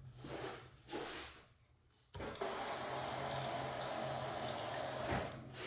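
A wall-mounted mixer tap feeding a hand-held shower head: water sprays onto a slatted shower floor in a steady hiss. It comes on suddenly about two seconds in and dies away near the end.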